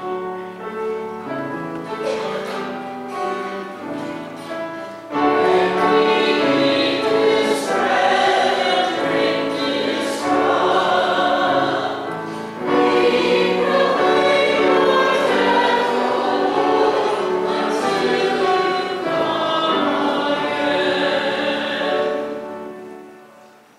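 Church choir and congregation singing a Mass acclamation with sustained accompaniment. It begins softly and swells about five seconds in when the full singing comes in, then fades away near the end.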